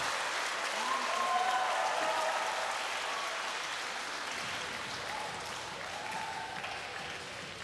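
Arena crowd applauding the winning point of a table tennis game, with a few voices calling out; the applause slowly fades.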